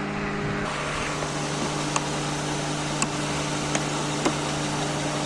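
2003 Honda Odyssey's 3.5-litre V6 engine idling steadily, with a few light clicks.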